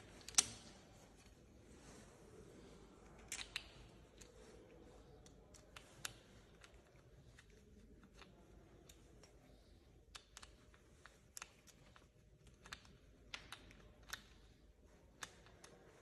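Small parts clicking and tapping against a bicycle handlebar as they are handled and fitted. There is one sharp click about half a second in, a couple more a few seconds later, and a run of lighter scattered clicks near the end.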